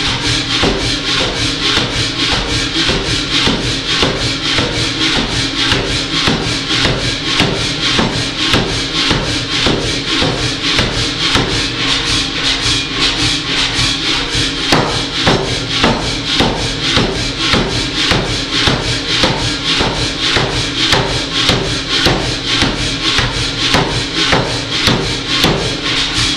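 Power hammer striking a red-hot piece of thick rebar in a rapid, even run of blows, several a second, as the steel is forged between the dies.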